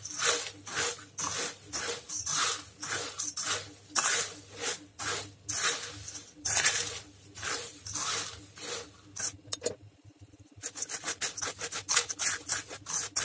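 A spoon stirring crisp fried poha (flattened rice flakes) in a stainless steel bowl: repeated dry rustling, scraping strokes, a few each second, with a pause of about a second near the end.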